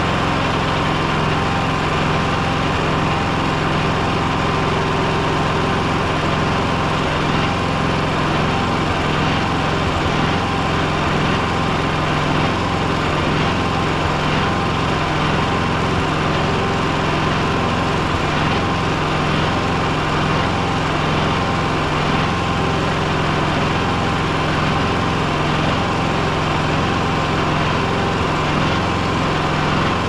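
Yamaha EF4500iSE generator engine running steadily at an even speed, with no surging or stumbling, its carburetor's emulsion tube and main jet freshly cleaned: the rough running is cured.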